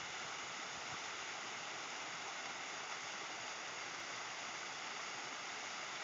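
Water pouring over a small fountain waterfall and splashing into its pool: a steady, even rush.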